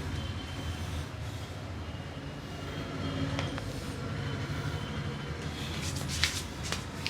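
A steady low rumble, and in the last second and a half a few sharp hand strikes of an Indian head massage, slaps or claps on the head.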